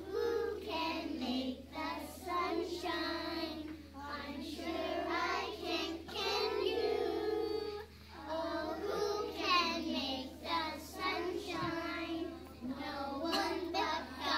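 A class of preschool children singing a song together in unison, in phrases with a short break about eight seconds in.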